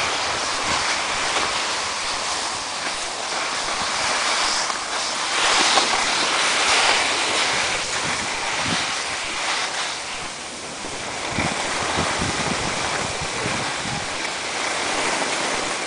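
Skis sliding and scraping over packed snow: a steady hiss that swells and eases, with occasional low wind buffets on the microphone.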